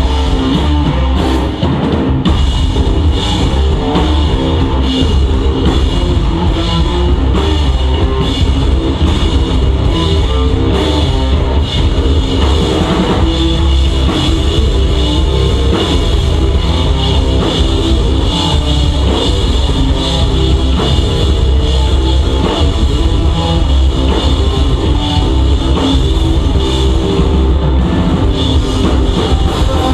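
A pop punk band playing live: a driving drum kit with electric guitars, loud and steady, in an instrumental stretch without vocals.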